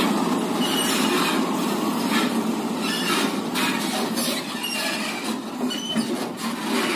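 A loaded Volvo tractor-trailer rig moving slowly over rough ground: steady running noise from the truck and trailer with a few short high squeals from the rig now and then.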